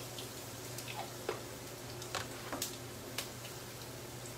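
Garlic slices frying in hot oil in a Teflon pan: a handful of small scattered pops and crackles over a low steady hiss.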